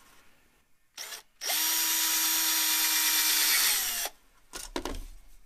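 Cordless drill boring a small corner relief hole, about 1/8 inch, through aluminium sheet. A short blip of the trigger comes about a second in, then the drill runs steadily for about two and a half seconds and winds down. A few light knocks follow near the end.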